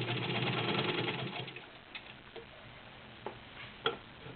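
Class 15 clone straight-stitch sewing machine running through two layers of fabric: a steady motor hum with rapid stitching ticks, stopping about a second and a half in. A couple of sharp clicks follow near the end.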